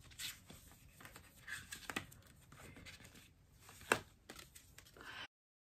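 Paper and plastic album packaging handled close by: faint rustling and crinkling with a few sharp short ticks, the loudest about four seconds in. The sound cuts off suddenly to dead silence near the end.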